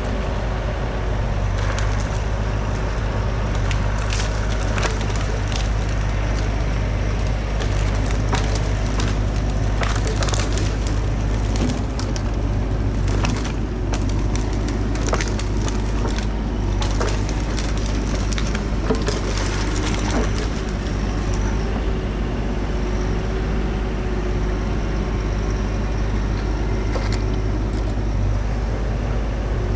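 Bobcat E42 mini excavator's diesel engine running steadily under load, with many sharp cracks and snaps of wood as branches of a fallen dead tree break; the snapping comes thickest in the first two-thirds.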